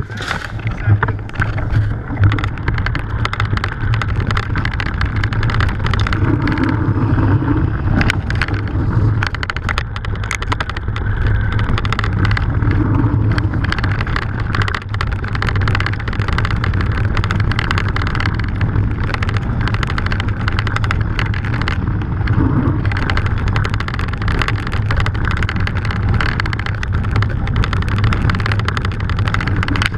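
Mountain bike rolling over a loose gravel trail: steady tyre crunch with constant small rattles and knocks from the bike.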